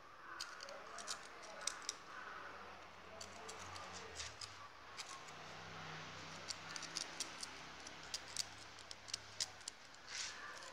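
Faint, irregular sharp clicks and crackles, coming faster in the second half, as a kitten bites and paws at the dry aerial roots and bark of a potted orchid.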